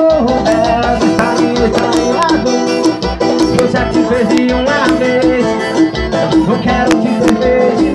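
Man singing live into a microphone over amplified, upbeat Latin-style dance music with a steady beat.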